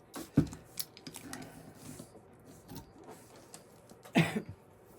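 Small clicks and taps of cups and containers being handled, with a brief cough about four seconds in.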